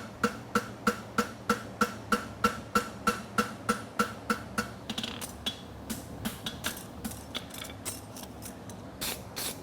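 Rapid hammer blows on a steel horseshoe against the anvil, about three a second, each with a clear metallic ring, as the farrier works the shoe's edge. About halfway through the blows turn lighter and duller and come less evenly.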